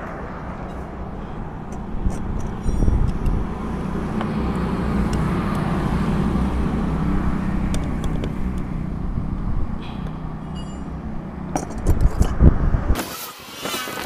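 Small metallic clicks and taps of screws and a screwdriver as a Roots horn's cover screws are fitted and tightened, over a steady low rumble. A few louder knocks come near the end, and the rumble drops away just after.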